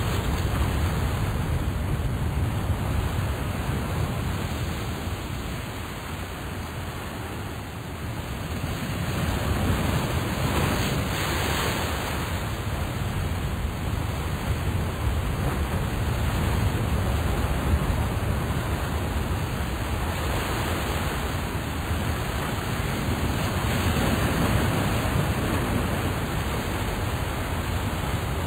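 Steady rushing noise with no clear tone, weakening about six to eight seconds in and swelling again a few seconds later.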